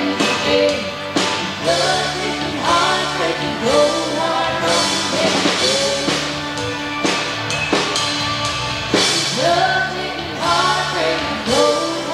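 A song playing: a voice singing over a drum kit and other instruments.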